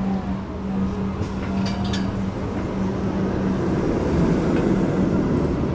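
A steady low machine hum over a dense wash of background noise, with a few light clicks and a swell of rumbling noise in the second half.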